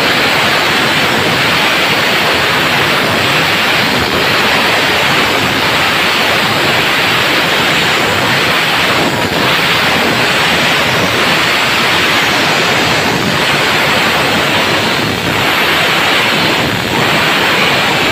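Stihl MS 382 two-stroke chainsaw running at full throttle under load, ripping lengthwise along the grain of a wooden beam. The sound is loud and steady, dipping slightly a few times in the second half.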